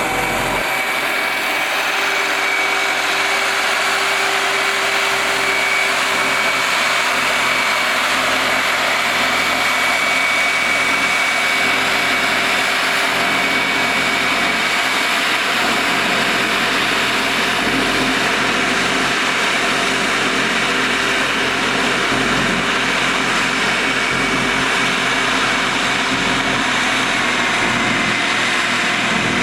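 Heavy construction machine's engine running steadily under work, with a steady high-pitched whine over the engine noise.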